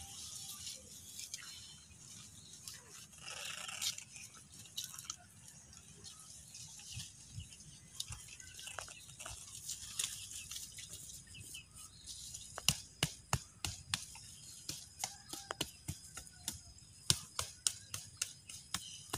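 Faint scratchy rustling of a woven plastic sack being worked around a durian seedling's root ball as it is sewn shut. About two-thirds of the way in, a run of sharp, irregular knocks starts, roughly two a second.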